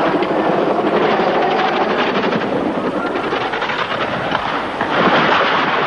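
Helicopter rotor and engine noise running steadily, with a louder surge about five seconds in.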